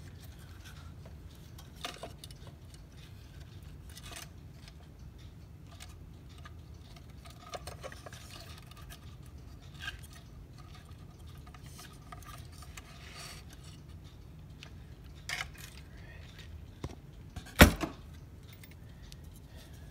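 Scattered light clicks and knocks from a wooden cuckoo clock case and its parts being handled as it is turned over and its porch lifted off, with one sharp knock near the end. A low steady hum runs underneath.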